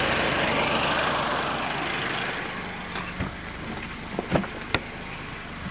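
Running engine and electric radiator and condenser cooling fans of a 2010 Suzuki Grand Vitara, heard as a steady rushing noise with the AC on and the compressor clutch engaged. The noise fades after about two seconds, and a few light knocks and clicks follow.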